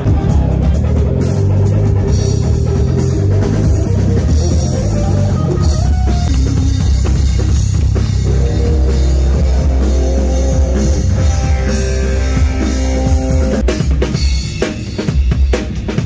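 Rock band playing at a stage sound check: a deep, stepping bass guitar line with electric guitar and a drum kit, heard loud through the stage PA. Near the end the drums come to the fore.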